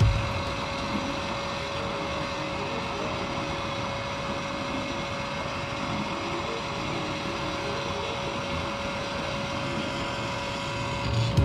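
Used-cooking-oil burner stove running at full flame: a steady, even roar with a constant hum underneath.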